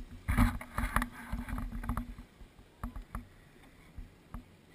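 Jet ski running slowly with a low engine hum, over a run of sharp knocks and slaps from choppy water hitting the hull. The knocks come thick for about the first two seconds, then only now and then.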